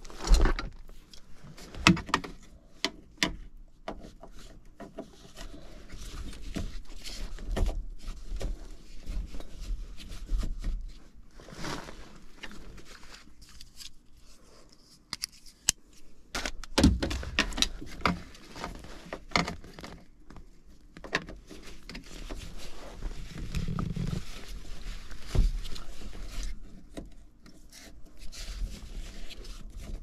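Handling noise of tools and hands working at an open air handler: scattered clicks, knocks and scraping at an irregular pace, some of them sharp.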